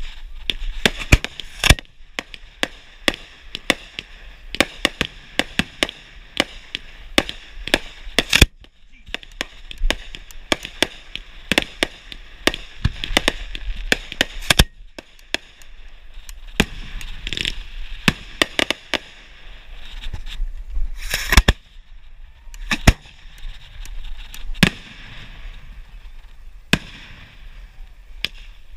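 Fireworks being fired at close range: a rapid, irregular string of sharp bangs and pops, at times several a second, from shells launching out of mortar racks and bursting, with short lulls between volleys.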